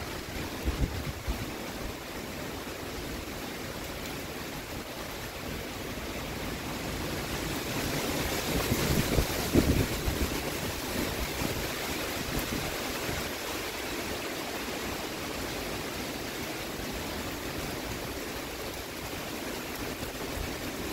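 Heavy storm rain and high wind through the trees as a steady rushing hiss. It swells in a stronger gust around nine to ten seconds in, with a few low thumps of wind on the microphone there and once about a second in.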